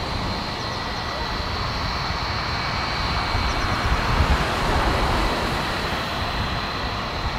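Boeing 757's jet engines running at taxi power: a steady high whine over a low rumble, swelling slightly about halfway through.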